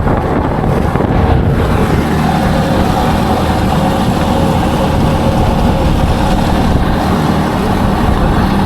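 Outboard motor of a small flat-bottom boat running steadily under way.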